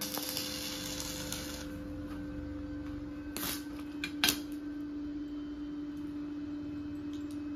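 Stick (arc) welding on steel: the electrode arc crackling and sizzling for the first second and a half, then again in two short spells a little past three and four seconds in, over a steady low hum.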